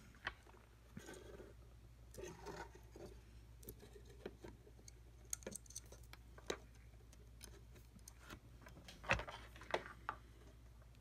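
Faint handling noises of fingers working wires and a spring into an open plastic soldering iron housing: scattered small clicks and plastic rustles, with a few sharper clicks about nine seconds in.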